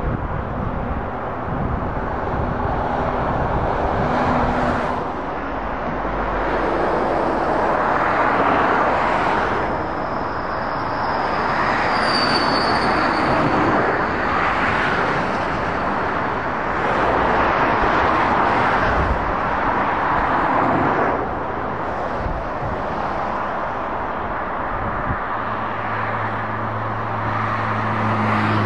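Motorway traffic passing: cars, vans and lorries, a steady roar of tyres and engines that swells and fades as each vehicle goes by. Near the end a heavy Volvo FM lorry's diesel engine hum comes up as it draws close.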